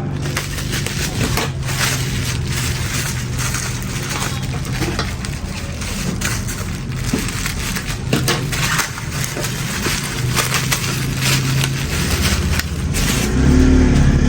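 Plastic parcel wrapping being torn and pulled open by hand, a dense crinkling and crackling, over a steady low engine hum that grows louder near the end.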